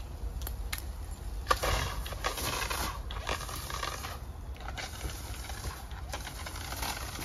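An old 4 lb Kidde ABC dry-chemical fire extinguisher with a plastic handle discharging: a steady hissing rush of monoammonium phosphate powder that starts about a second and a half in, after a few sharp clicks. The extinguisher is still holding pressure and works.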